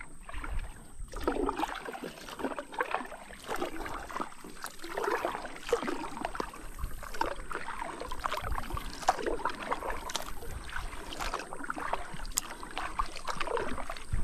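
Water splashing and trickling around a kayak being paddled on a river, in many small, irregular splashes.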